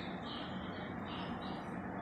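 Plastic hamster flying-saucer wheel spinning steadily as a baby hamster runs on it, with several short high-pitched sounds over the top.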